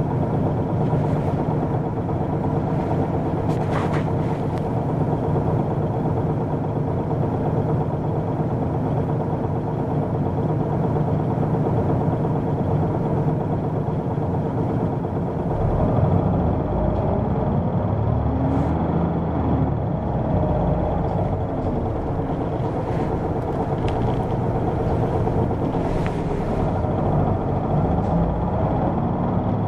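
Hino PDG-KV234N2 (Blue Ribbon II) city bus diesel engine idling steadily, then from about halfway the engine note rises and shifts as the bus pulls away and accelerates.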